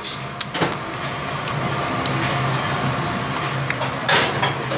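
Restaurant kitchen background noise: a steady hiss with a low hum under it, and a few short clicks, the loudest about four seconds in.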